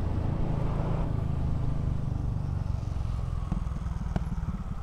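Motorcycle engine running while riding, a steady low drone. About three and a half seconds in the note eases and the separate engine beats come through, with a single sharp click shortly after.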